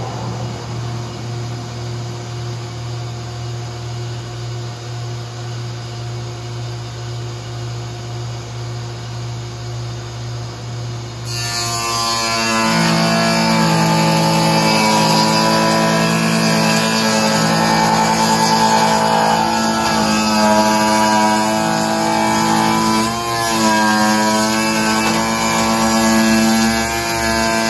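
Woodworking moulding machine with a spinning cutter head: it hums steadily while running free, then about eleven seconds in it gets much louder as wood is fed through and the cutter bites, a dense whining rush that stays loud with brief dips as each piece passes.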